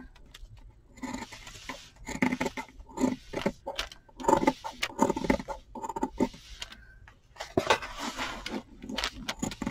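Scissors cutting through felt: an irregular series of snips with fabric rustling and handling noise.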